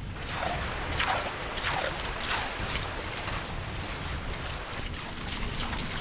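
Shallow seawater washing over a shell-strewn tidal flat, with a few gritty scrapes of hand hoes digging through the shelly sand for Manila clams.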